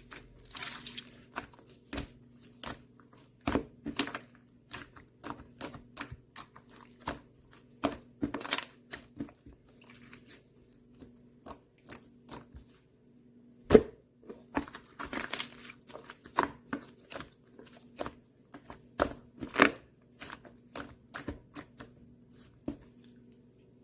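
Irregular clicks, taps and rustling handling noises, sharpest about 14 s in and again near 20 s, over a steady low hum.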